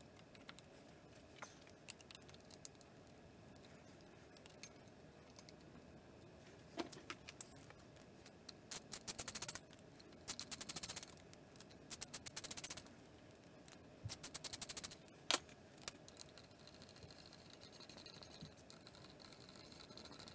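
Ratchet clicking in four quiet runs of rapid ticks, each about a second long, as the spring retaining bolts of a slipper clutch pressure plate are run down, with a few light metal-on-metal clicks of the bolts and spring caps being handled before them and one sharp click near the end.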